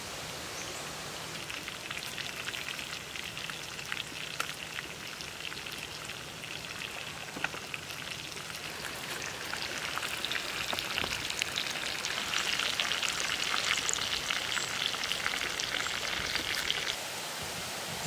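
Chicken pieces sizzling in a pan over an open fire: a rain-like hiss full of small crackles. It swells about halfway through and drops off abruptly near the end.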